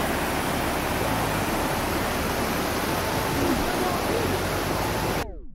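Creek water rushing over rocky cascades: a steady, full roar of white water that cuts off abruptly near the end.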